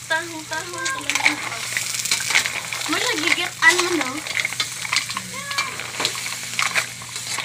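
Mussels sizzling in a hot pan as they are stirred, with a steady hiss and frequent sharp clicks of the shells knocking against each other and the pan.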